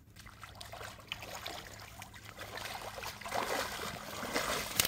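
Shallow water splashing and sloshing as a large rohu is landed in the muddy shallows at the river bank, louder over the second half, with one sharp click near the end.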